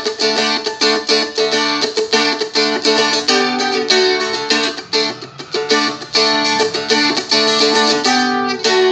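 Seagull Merlin strumstick-style dulcimer strummed in a steady run of strums, changing from the open D chord to G, to D with the second fret, and back to open, the progression played twice.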